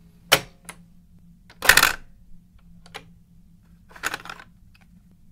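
Several short sharp clicks and clattering noises, the longest about two seconds in and again near four seconds, over a low steady hum.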